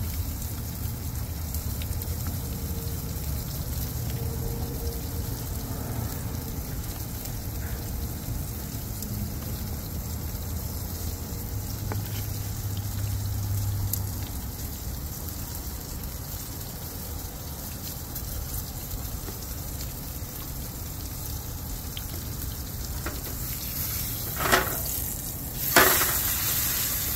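Steak sizzling in a skillet on a two-burner propane camp stove, a steady frying hiss. Near the end come two sharp knocks as tongs hit the pan while the steak is handled.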